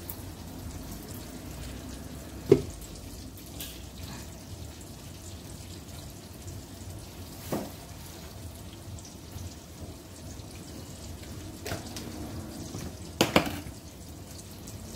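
Garlic butter with scallion and thyme sizzling gently in a frying pan over a gas burner, with a few sharp knocks and clicks: a loud one about two and a half seconds in and a close pair near the end.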